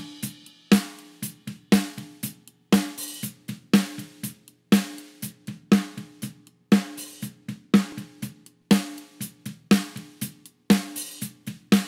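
Recorded drum groove played back from a mix: a heavily processed snare drum hits about once a second, each hit ringing on with a sustained tone until the next, with lighter kit hits between. The snare bus has a high-shelf EQ boost and Slate Revival shimmer added.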